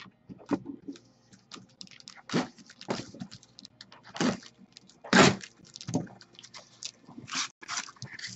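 Cardboard shipping case being handled and opened by hand: irregular crackles, scrapes and knocks of cardboard, the loudest about five seconds in.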